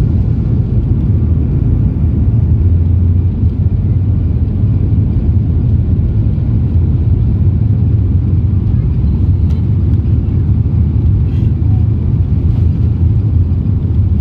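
Cabin noise of a Boeing 737 MAX 8 rolling along the runway: its CFM LEAP-1B engines and wheels make a steady, loud, deep rumble.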